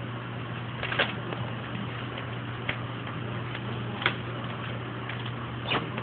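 A few light, sharp taps, four spread over six seconds, over a steady low hum and hiss.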